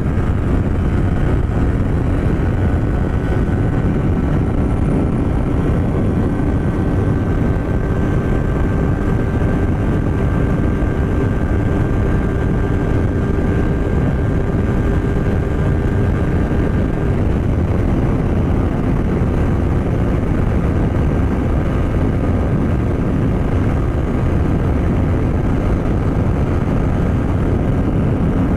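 Yamaha MT-03 parallel-twin engine with an aftermarket Paolucci exhaust, held at high revs under full throttle near top speed, under heavy wind rush on the microphone. The engine note stays nearly steady, shifting slightly a little past halfway.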